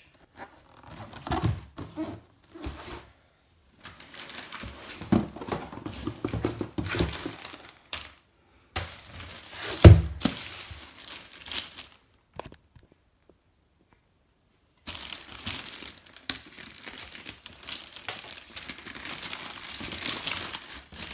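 Plastic mailing bag and packaging crinkling and tearing as a parcel is unwrapped by hand, with one sharp thump about halfway through. The rustling stops for about two seconds, then the crinkling and tearing of the plastic bag runs on steadily.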